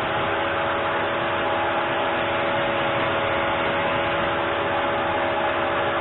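Table saw motor running steadily at speed, a constant machine noise with a steady whine.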